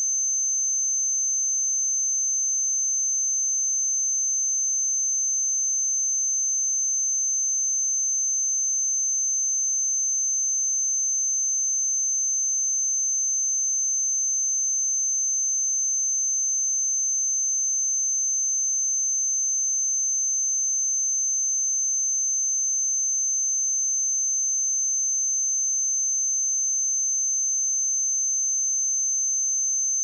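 A steady 6233 Hz sine-wave test tone: one constant, high-pitched pure tone with no change in pitch or loudness.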